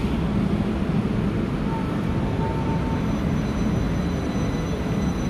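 Train running, a steady low rumble of wheels and running gear with no change in speed, and a faint thin tone coming and going about two seconds in.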